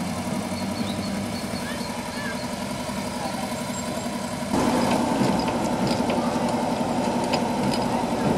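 Engine of a KLV 12 motor rail trolley idling steadily. About halfway through the sound jumps abruptly louder and brighter, with scattered clicks.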